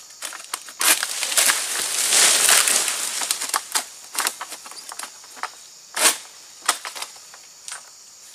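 An egrek, a hooked sickle on a long pole, cuts into the crown of an oil palm during harvest, making crackling, crunching and rustling as it goes through the fibrous fronds. The sound is densest for about two and a half seconds starting about a second in, then thins to scattered sharp cracks, the loudest about six seconds in.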